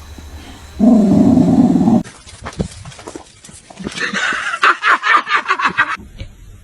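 Dog vocalizing: a loud, low sound lasting about a second near the start, then a higher, rapidly pulsing sound for about two seconds later on.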